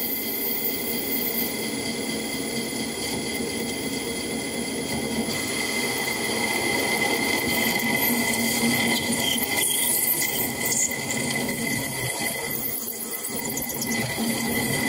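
Home-built lathe running, its spindle turning a nylon rod while a grooving tool cuts into it: a steady high whine with several held tones over a running machine noise. The cut is one where the heat-softened nylon chip builds up on the cutting edge and cannot escape the groove.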